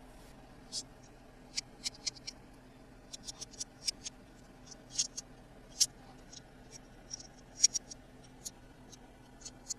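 Irregular small, sharp clicks and ticks of toy pieces and packaging being handled, about twenty in a few seconds, some louder than others.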